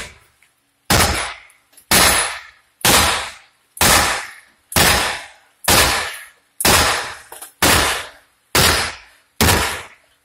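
Hammer striking an old cast-iron drain pipe, about once a second, about ten blows in all, each hit sharp with a short metallic ring.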